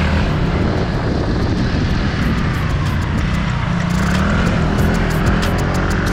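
Small motor scooter engine droning under throttle while the scooter is ridden in a wheelie. Its pitch dips and then rises again around the middle.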